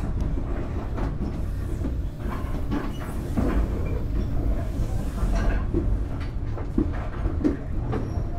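Vietnam Railways SE19 passenger train running along the track, heard from on board: a steady low rumble of wheels on rail with irregular clicks and knocks from the running gear and carriages. A rush of hiss swells about three seconds in and fades near the middle.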